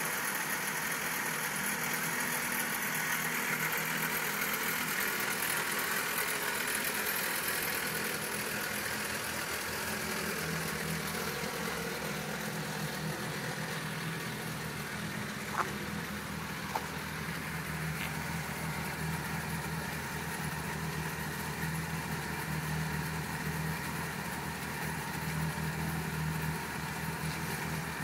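BMW E30 316's four-cylinder engine idling steadily, with two light clicks about halfway through.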